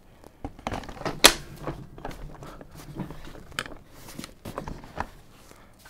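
Plastic clicks and knocks as an UPPAbaby Mesa infant car seat is fitted and clicked into the Vista V2 stroller frame, with the sharpest knock about a second in.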